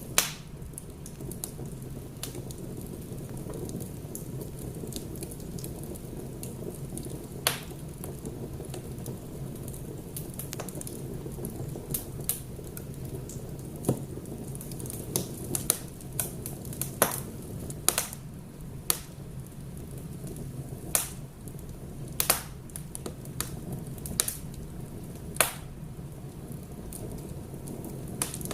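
Wood fire burning in a fireplace, with irregular sharp crackles and pops over a steady low rush; the pops come more often in the second half.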